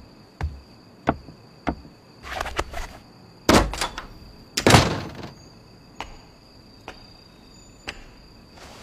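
A door and footsteps: a few sharp knocks, a brief rattle, then two heavy door thuds about three and a half and four and a half seconds in, followed by a few fainter, spaced knocks.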